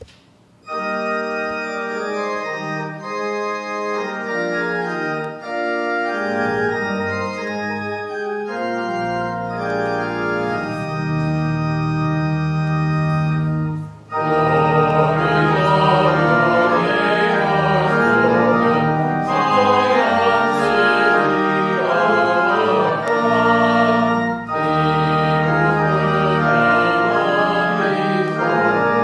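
Church organ playing the opening hymn in sustained chords. It breaks off briefly about halfway, then resumes louder and fuller.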